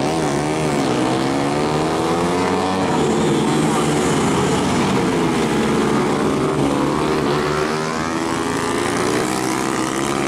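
Tuned 150cc four-stroke supermoto motorcycle engines revving up and down as the bikes brake and accelerate through corners, several engines overlapping in pitch.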